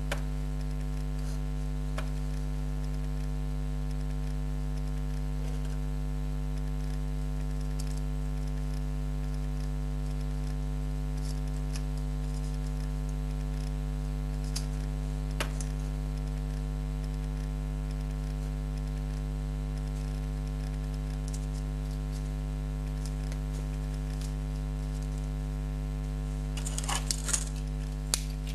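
Steady electrical mains hum throughout, with a few faint isolated clicks. Near the end comes a short burst of light metallic clatter as the tube and its end cap are handled.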